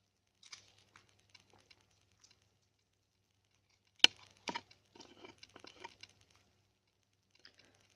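Small plastic clicks and handling noises of a smartwatch battery being fitted into its compartment, with one sharp click about four seconds in followed by a run of lighter clicks.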